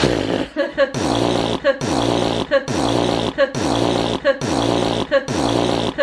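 A person blowing raspberries, lips buzzing in a steady run of about seven blasts, each just under a second long with a short break between.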